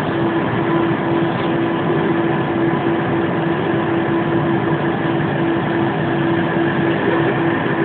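Steady whirring of laboratory instrument cooling fans and ventilation: an even rushing noise with a constant hum.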